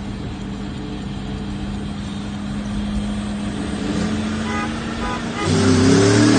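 Car engine running at a steady idle, then revving hard about five and a half seconds in, its pitch sweeping up and down.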